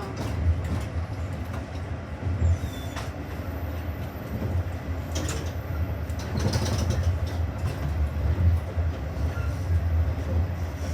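The TN4 passenger train running, heard from inside the carriage: a steady low rumble with a few scattered knocks and rattles.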